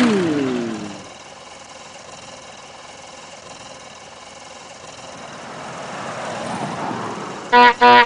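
Two falling tones wind down and die away in the first second, then a quieter steady engine-like hum swells, and near the end a horn gives two short, loud beeps.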